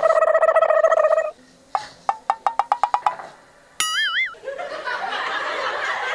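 Cartoon-style comedy sound effects: a wavering tone, then a quick run of plucked notes, then a click and a wobbling whistle-like slide. From about halfway through, a laugh track comes in.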